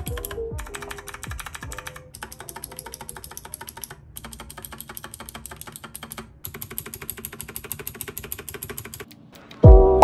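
Stabilized keys (Enter and other long keys) on a Royal Kludge RK89 mechanical keyboard with stock blue switches and factory-lubed stabilizers, pressed rapidly and repeatedly in runs of quick clicks with short pauses. Background music comes in loudly near the end.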